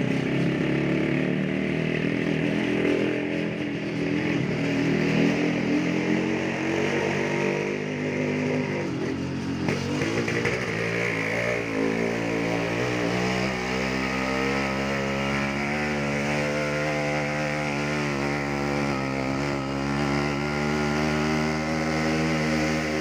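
Small motorcycle engine running steadily at low road speed, its pitch wavering up and down briefly near the middle.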